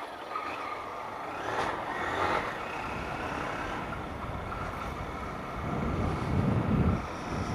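Single-cylinder engine of a Honda CG 160 Start motorcycle running while riding, with wind rushing over the microphone; the low rumble swells louder about six seconds in.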